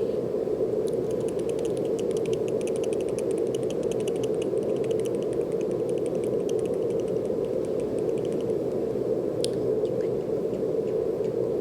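Steady brown noise, a deep even rushing hiss. Over it, a fast run of light clicks begins about a second in and stops about three quarters of the way through, followed by one sharper click.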